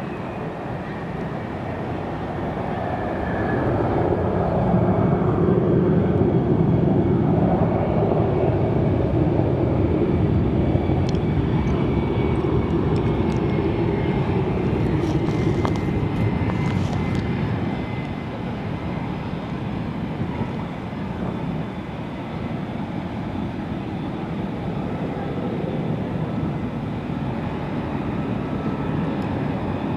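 F-35A Lightning II jet engine noise, a heavy rushing rumble, as the jet flies by. It swells a few seconds in and stays loud, with a faint high whine slowly falling in pitch. It eases off about two-thirds of the way through, then builds again near the end.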